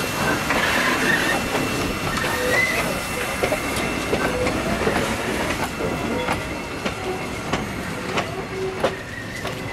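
Victorian Railways K-class 2-8-0 steam locomotive K160 moving along the track with steam hissing, its wheels clicking and clanking over the rails with a few brief squeals. The sound slowly fades as it draws away.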